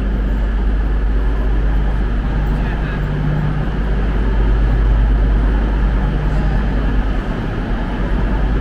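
Steady low rumble and hum of trains standing at the platforms under a station's train shed, with a few faint held tones in the hum.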